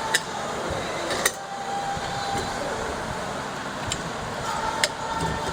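Steady background hum with three sharp knocks: one just after the start, one about a second in, and one near the end, from parts and tools being handled during bathtub assembly.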